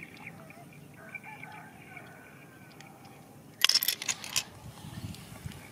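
Faint riverside ambience with distant birds calling. About three and a half seconds in comes a short burst of sharp clattering clicks, the loudest sound here.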